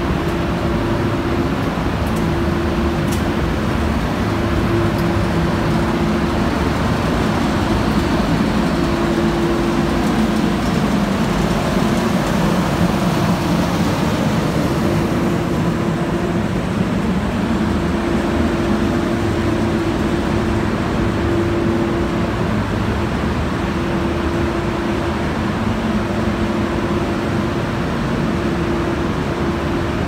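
Steady machinery noise of a running EPDM insulation pipe extrusion and vulcanization line, with a low hum that swells and fades at irregular intervals over a continuous rumble.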